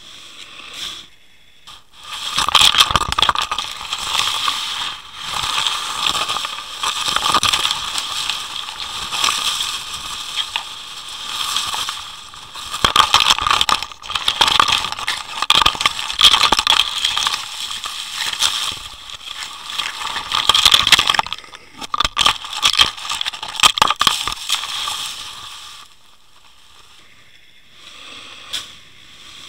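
Underwater camera housing scraping and dragging over a shelly, gravelly seabed: a loud, dense crackling and scratching that starts about two seconds in and fades a few seconds before the end.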